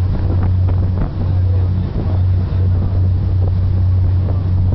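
CatCocos catamaran ferry's engines running under way with a steady low drone, mixed with rushing air and water noise and wind on the microphone.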